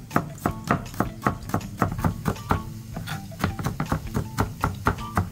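Broad-bladed cleaver mincing shallots and garlic on a plastic cutting board: quick, even knife strokes, several a second, over background music.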